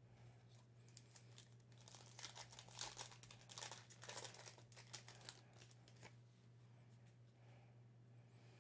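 Foil wrapper of a Panini Contenders football card pack being torn open and crinkled: faint crackling rustles from about two seconds in until about six seconds, over a low steady hum.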